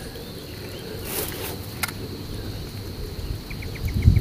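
Steady insect buzz over a quiet outdoor background, with a short rush of noise about a second in. Near the end comes a short run of quick ticks and a dull low knock.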